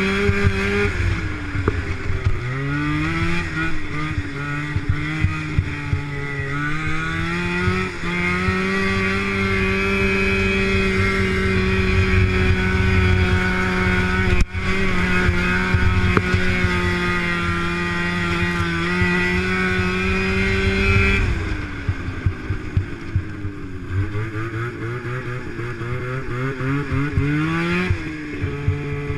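Two-up snowmobile's engine running under the rider at a steady high pitch, with a low rumble underneath. It eases off about three-quarters of the way through, then picks up again and settles near the end.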